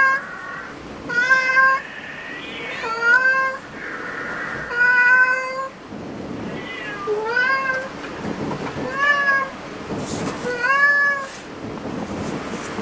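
Domestic cat meowing repeatedly: about eight short meows a second or two apart, some rising and then falling in pitch.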